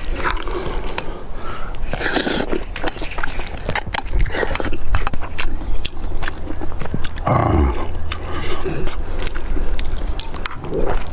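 A man eating noisily: many small crunching and wet chewing clicks as he bites and chews spicy napa cabbage kimchi with rice, with a few short louder slurps.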